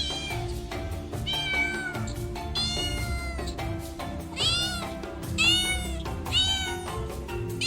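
Domestic cat meowing over and over, about six drawn-out meows a second or so apart, over steady background music.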